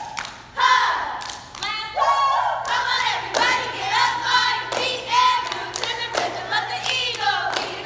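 A cheer squad chanting a cheer together, with claps and stomps on a gym floor beating through it.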